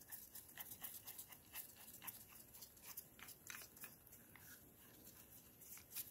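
Faint, irregular clicking and rubbing as gloved hands twist the sleeve of a keyless drill chuck, running its jaws open and closed.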